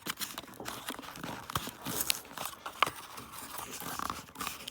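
Tool packaging being handled and pulled open by hand: crinkling and tearing with scattered sharp clicks and snaps.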